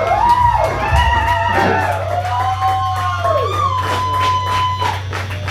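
Live rock band playing: electric guitar with bent, sustained lead notes, one held for about two seconds near the end, over a steady low bass note and repeated drum and cymbal hits.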